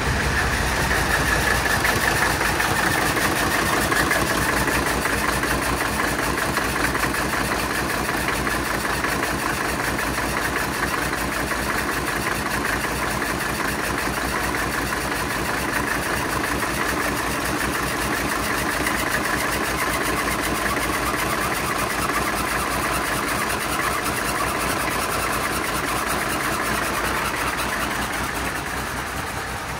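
Mercedes 300CD's 3.0-litre five-cylinder diesel engine idling with a steady, even clatter, fading slightly near the end.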